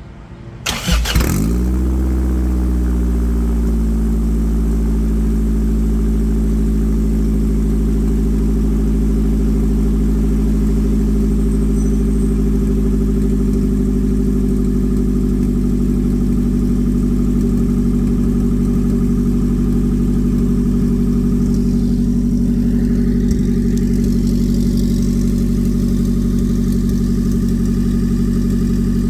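A 1995 Honda Civic's four-cylinder engine, breathing through a newly welded full exhaust, starts about a second in. Its revs drop and settle within a couple of seconds into a steady idle that stays even throughout.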